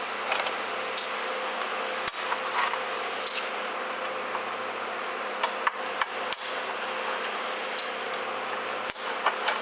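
Irregular metallic clicks and taps of a hex key working small screws out of a glue machine's sheet-metal front panel, the screws being set down, over a steady hiss.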